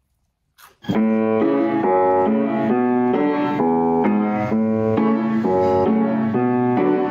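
Instrumental music starting about a second in, a quick, even run of piano-like notes.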